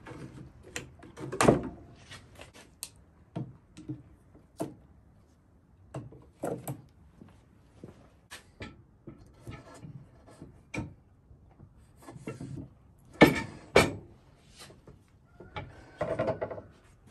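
Irregular clicks, clinks and knocks of parts being handled and fitted on a wooden sawbuck with steel posts, such as a pin and chain and a steel pipe set on the wooden top rail. Two sharp knocks close together stand out about three-quarters of the way through.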